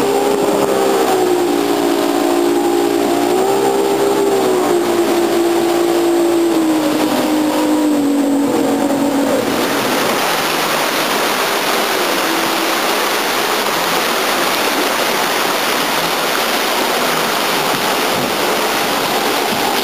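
A 14-foot Outback Rockbuster jet boat's engine running at speed, heard from on board; the pitch holds steady, wavers and sags a little. About halfway through it gives way abruptly to the loud rushing of river rapids, with a jet boat's engine faint underneath as it powers up through the whitewater.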